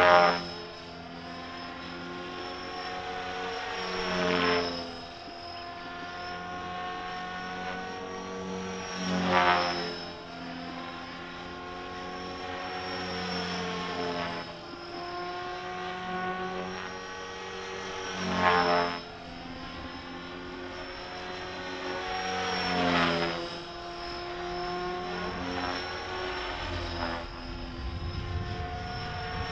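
Align T-Rex 450 electric RC helicopter flying: the whine of its electric motor and rotors, steady in pitch overhead, with the head speed set at about 3100 rpm. It swells and sweeps down in pitch as it passes close, about five times.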